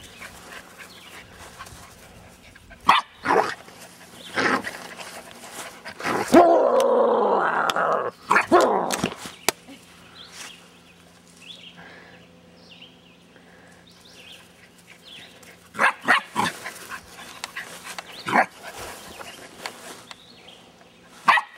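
Karelian Bear Dog puppy growling and barking in short bursts, with one longer drawn-out growl in the middle.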